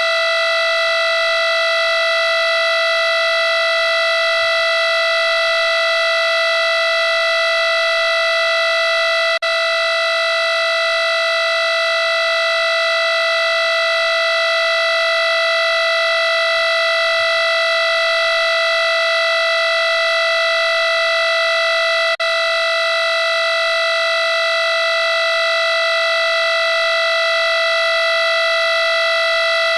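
A loud, steady electronic tone held at one pitch, harsh with many overtones and never changing, broken only by two split-second dropouts about nine and twenty-two seconds in.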